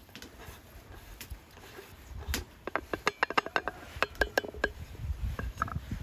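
Porcelain teapot and wooden plate being handled while dried herbal tea is tipped in: a quick, irregular run of light clicks and clinks, some with a brief ring, starting about two seconds in and stopping shortly before the end.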